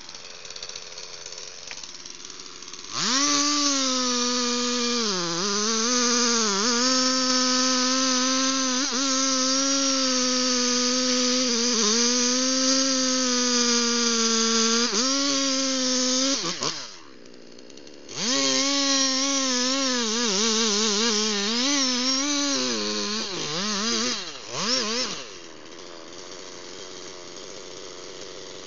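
Two-stroke chainsaw revved to full throttle and cutting into the base of a large tree trunk, its high engine note sagging and recovering as the chain bites into the wood. It drops out for about a second midway, comes back under load, then falls to a quieter idle near the end.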